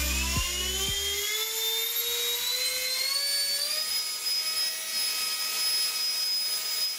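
Small electric fan spinning up: a whine that climbs steadily in pitch over a rush of air, levelling off about four seconds in and then running steadily. Electronic music with a low beat ends about a second in.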